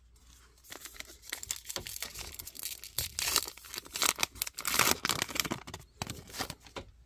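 A baseball card pack's crinkly wrapper being torn open and crumpled, a run of rips and crackles that is loudest in the middle.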